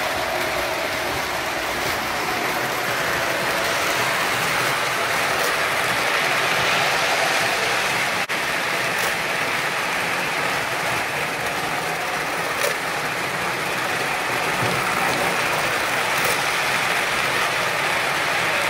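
O scale model trains running on the layout's track: a steady rumble of wheels and motors, with a few faint clicks.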